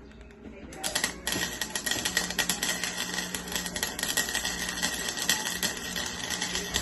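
Electric welder's arc crackling steadily with a low hum, starting about a second in.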